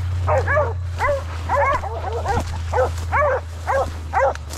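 Deer-hunting dogs barking and baying over and over at a downed deer they are fighting, short arched barks about two a second, several dogs overlapping.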